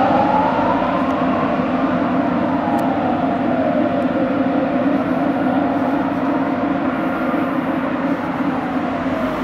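Fire engine sirens wailing on an emergency run. The main tone climbs over about a second, falls slowly over the next few seconds and starts to climb again near the end, over a second steady tone and a steady low rumble.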